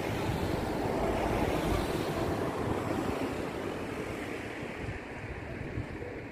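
Sea waves washing and wind blowing across the microphone, a steady rushing noise that eases a little in the second half.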